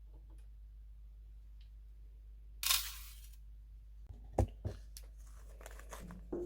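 Packing an order by hand: a short rustling tear, like tape or a plastic wrapper, about two and a half seconds in, followed by a few light clicks and taps of small items being handled.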